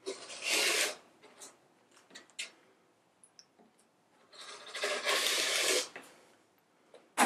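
Rotary cutter rolling through sweatshirt fleece against a ruler on a cutting mat: two cutting strokes, the first about a second long and the second about a second and a half, with small clicks and taps between and a sharp click near the end.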